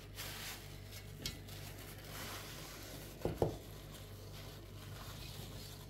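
A spoon working in a pan of thick eggplant and tomato stew to lift out a bay leaf: soft scraping and small clicks, with two sharper knocks against the pan a little over three seconds in.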